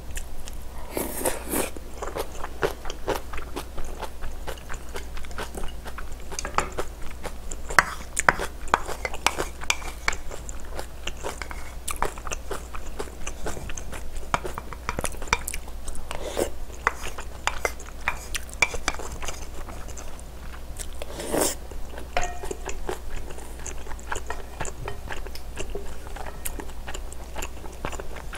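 Close-miked chewing and biting: a person eating dumplings and rice cakes from a spicy dumpling soup, a dense run of small mouth clicks.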